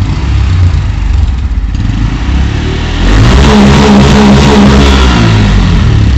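Bajaj Pulsar N160's single-cylinder engine running on a stock silencer. It ticks over at first, is revved up about three seconds in, held high for a couple of seconds, then eased back down.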